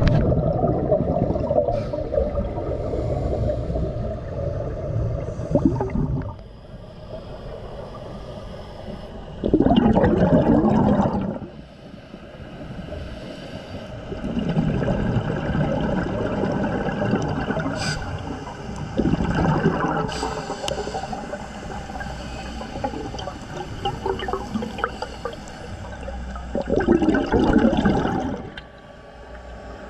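Scuba breathing heard underwater: bursts of exhaled bubbles from a regulator every few seconds, with quieter stretches of water noise between them.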